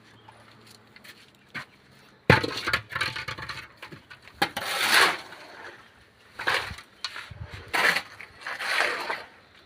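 Construction work: irregular bursts of scraping and clattering that start suddenly a little over two seconds in and recur about every second or so, after a quiet start with only a faint hum.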